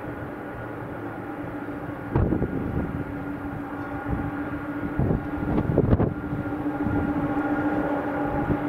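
Boeing 747 freighter's jet engines running steadily with a low hum as the jet rolls along the runway. Gusts of wind hit the microphone a few times, about two seconds in and again around five and six seconds in.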